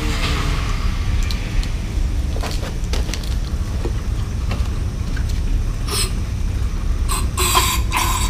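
Aerosol carburetor cleaner sprayed through a straw into a small engine's intake: short hissing bursts from the can, one about six seconds in and several in quick succession near the end, over a steady low rumble, with a few light clicks of handling earlier.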